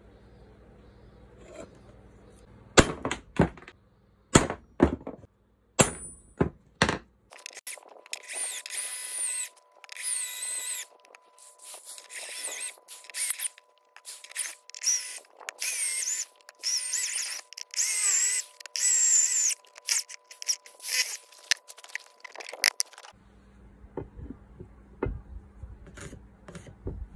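Electric drill boring into a clamped flat steel bar, switched on and off in repeated short bursts with a high, wavering whine. Before and after the drilling, a few sharp knocks of tools and metal set down on a wooden workbench.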